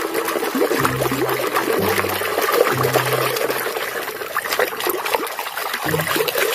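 Running water splashing and trickling as mud is rinsed off a toy tank.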